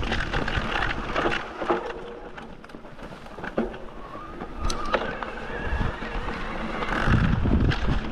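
Wind buffeting the action-camera microphone while riding a mountain bike over rough ground, with scattered knocks and rattles from the bike. It eases off in the middle, where a faint rising whine is heard, and then picks up again near the end.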